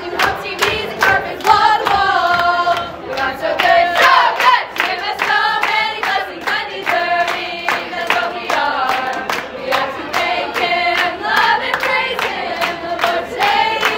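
A group of voices, children among them, singing a song together, with hands clapping along.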